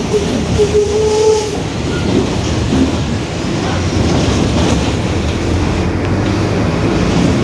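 Bus rear differential whining at highway speed, over a steady rumble of road noise and cabin rattle. The whine stands out most about a second in.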